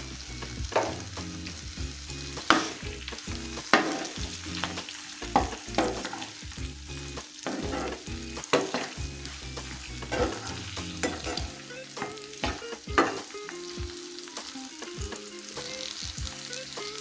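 Sliced onions and dried red chillies sizzling in hot oil in a pan, stirred with a spatula that clacks and scrapes against the pan every second or two.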